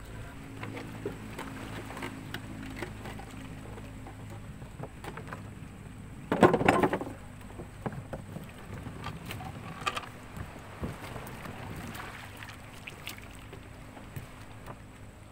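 Small gasoline engine of a wooden longtail boat idling with a steady low hum, under knocks and clatter from someone moving about the hull. A loud clattering knock comes about six and a half seconds in.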